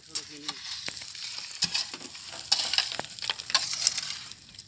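Metal shovel scraping and digging into loose, gravelly red soil: repeated gritty scrapes with sharp clicks of small stones.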